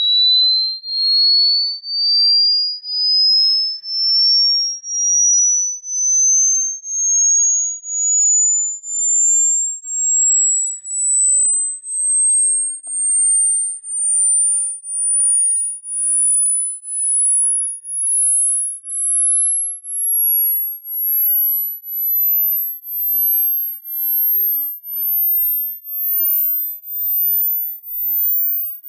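Hearing-test tone: a pure, high-pitched sine tone climbing slowly and steadily higher in pitch, pulsing on and off about once a second. The rising tone tests the upper limit of hearing, which drops with age.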